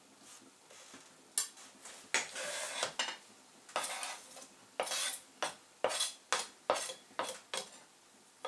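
Kitchen knife and plate clattering on a cutting board: a string of sharp clicks and short scrapes, starting about a second and a half in, as sliced spring onions are scraped off the board onto a plate.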